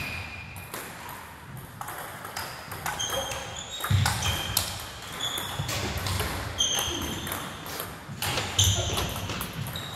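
Table tennis balls clicking off paddles and tables, each hit a short high ping. The hits come at an uneven, overlapping pace, as from several rallies going at once.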